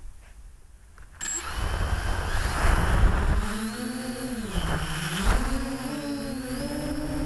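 Six brushless motors with 10x5 propellers on a DJI F550 hexacopter, heard from a camera on the frame. About a second in the motors spool up suddenly to take-off power, then run loud and steady with a high whine on top. Their pitch dips and climbs again as the throttle changes during the climb.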